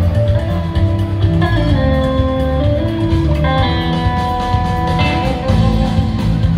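Rock band playing live in a large hall, heard from the audience: held electric guitar lead notes over bass and drums.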